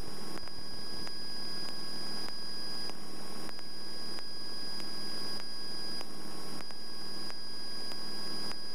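Cessna 172 cabin in cruise: steady engine and propeller drone with rushing airflow noise, and a thin steady high whine over it.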